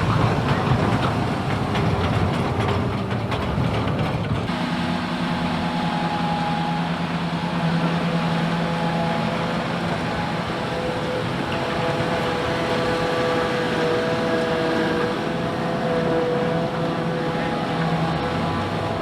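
Farm tractor and silage machinery running steadily: an even engine drone with steady whining tones on top. About four seconds in the sound changes abruptly from a denser, rougher stretch to the steadier drone.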